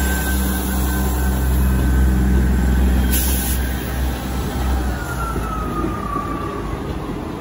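Three-car Class 158 diesel multiple unit passing over the level crossing, with a deep diesel engine rumble that eases off about five seconds in. Wheels run on the rails throughout, a short hiss comes just after three seconds, and a faint falling tone follows near the end.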